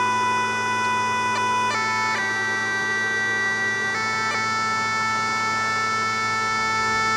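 Background music: a slow melody of long held notes over a steady low drone.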